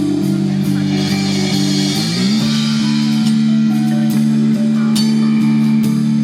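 Live band playing an instrumental passage: drum kit keeping a steady beat, with guitar over a sustained low chord that steps up in pitch about two seconds in.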